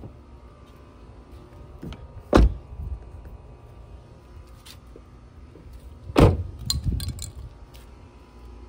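Two sharp thumps about four seconds apart, each followed by a short low rumble. A few light clicks come right after the second thump, over a steady low background rumble.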